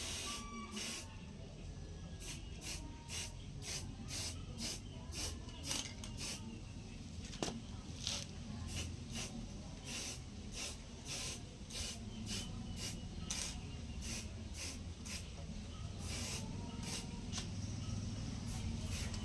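Homemade electric coconut grater driven by a washing machine motor, grating coconut: a scratchy hiss in repeated strokes, about two a second, over the steady low hum of the motor.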